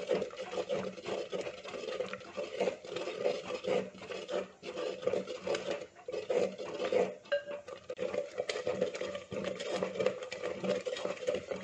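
Steel spoon stirring a thick yogurt-and-coconut curry in an unglazed clay pot: a continuous run of rapid scraping and clinking strokes against the pot's wall, over a steady hum.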